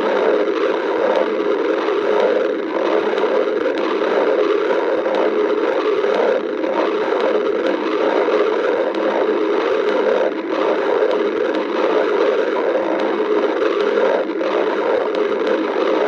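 Stomach growling: a person's belly gurgling and rumbling without pause, with brief lulls about every four seconds.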